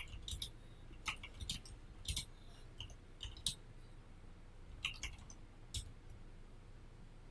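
Scattered clicks of computer keyboard keys, a dozen or so irregular taps over about six seconds, then stopping near the end.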